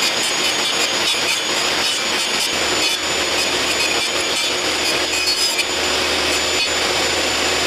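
Table saw running with its blade cutting into a pine 2x4, a steady loud buzz of blade and motor with a thin high whine. The board is being passed over a lowered blade to cut a dado groove.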